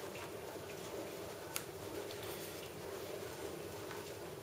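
Faint handling of a laptop's MXM graphics card as it is pressed into its motherboard slot, with one light click about a second and a half in, over a low steady hum.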